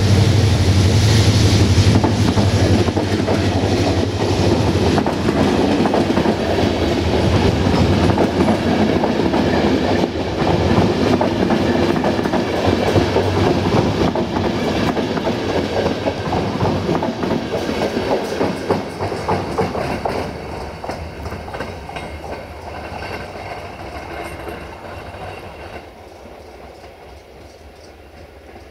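Passenger coaches of a diesel-hauled train passing close by, wheels clattering over rail joints, with the low drone of the GM diesel locomotive that has just gone past strong at first. The sound fades away over the last ten seconds as the train recedes.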